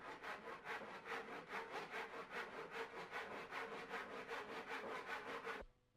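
Tenon saw cutting a mitre through a wooden dado rail in a mitre block, in quick, even back-and-forth strokes. The sawing stops abruptly near the end.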